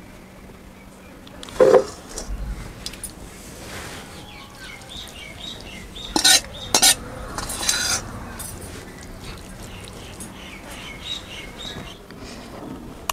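Metal ladle and spoon clinking and scraping against stainless steel bowls and a plate. The loudest clatter comes just under two seconds in, with a few more sharp clinks and scrapes around six to eight seconds in and light clicks after that.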